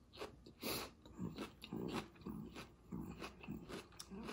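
A person chewing soft cooked squash: quiet, wet mouth sounds in short bursts, about two to three a second.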